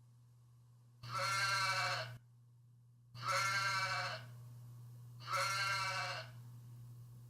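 Sheep bleating three times, each call about a second long with a wavering pitch, over a faint steady low hum.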